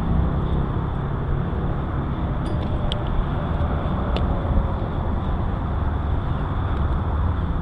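Steady wind rush and rolling rumble on an action camera's microphone while riding a bicycle, with a few faint ticks about halfway through.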